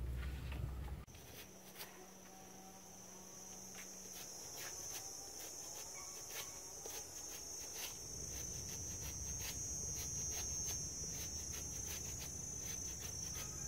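A steady high insect drone starts about a second in and carries on. Over it come short, irregular clicks of a knife cutting through a banana blossom.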